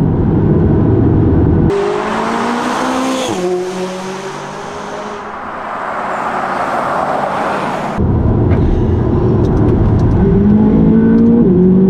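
McLaren 570GT's twin-turbo V8 heard from inside the cabin, pulling hard with its pitch climbing, dipping briefly at a quick upshift near the end and climbing again. In the middle a car is heard from the roadside accelerating, changing gear and passing by.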